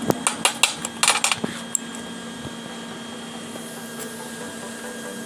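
Metal parts being handled: a steel pipe and its end cap click and knock together several times in the first second and a half, over a steady electrical hum.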